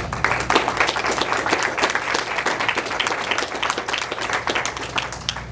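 A small audience applauding: many overlapping hand claps, dying away near the end.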